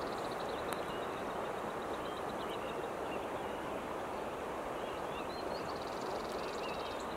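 Steady rushing of a river's flowing water, with a few faint bird chirps over it.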